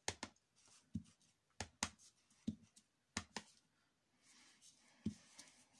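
Photopolymer stamp on a clear acrylic block tapping repeatedly on an ink pad and onto cardstock, dabbing ink dots around the panel's edge: a run of short, sharp taps, several in quick pairs, with a soft rustle of paper and hands near the end.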